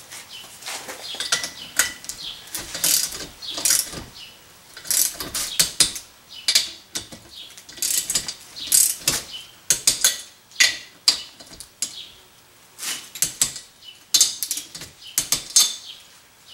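Ratchet wrench clicking in quick runs of strokes with short pauses between them as the cylinder head bolts of a small lawnmower engine are tightened down to torque.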